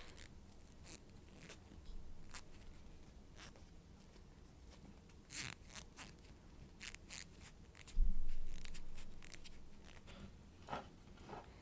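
Sporadic clicks, rustles and scrapes of a microphone kit and its packaging being handled, with a louder thump and rustle about eight seconds in.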